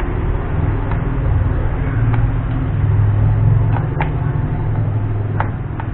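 A steady low mechanical hum, with several light clicks as screws are driven back into the laptop's base panel.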